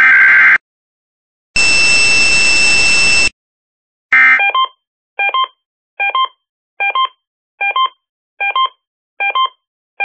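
Emergency Alert System test audio. It opens with the end of a SAME digital header burst, a harsh buzzing data screech, and after a pause comes a steady alert tone with hiss lasting under two seconds. Another short data burst follows at about four seconds, and then a stacked electronic double beep repeats about every 0.8 seconds.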